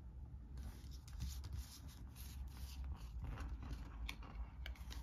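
Paper playing cards being handled and slid across a wooden tabletop. A run of faint scrapes and flicks starts about half a second in.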